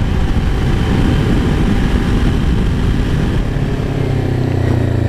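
Kawasaki Ninja 400 parallel-twin running through a Fuse Racing aftermarket slip-on exhaust while being ridden. A rough rumble settles into a steady low drone about three and a half seconds in.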